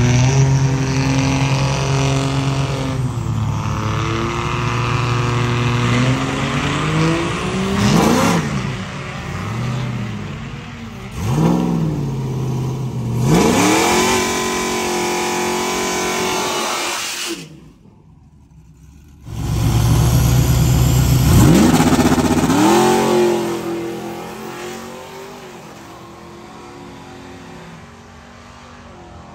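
Chevrolet Trailblazer SS drag car's V8 idling and blipping the throttle in short rising-and-falling revs, then a few seconds of steady, hissing wheelspin in the burnout. After a short break it launches hard, pitch climbing through the gears, and fades away down the strip alongside a diesel truck running in the other lane.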